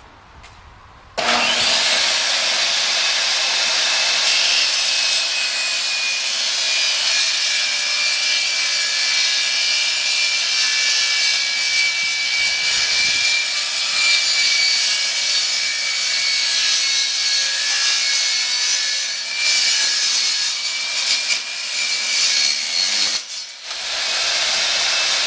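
Table saw switched on about a second in, its blade running with a steady high whine while cutting through a wooden board. The sound drops briefly near the end, then comes back.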